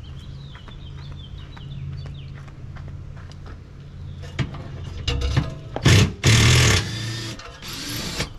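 A canister water filter unit dragged over gravel: a few knocks, then two loud scraping rushes about a second long each, near the end, over a steady low hum.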